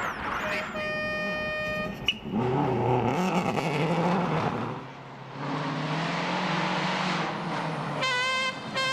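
World Rally car engine revving hard through the gears, its pitch falling at gear changes and held high in between, with road and tyre noise from the car at speed.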